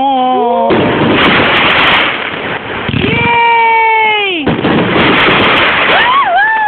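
Fireworks going off loudly, with booms and dense crackling. Between the bursts, onlookers give three drawn-out calls; the middle one holds its pitch for over a second before sliding down.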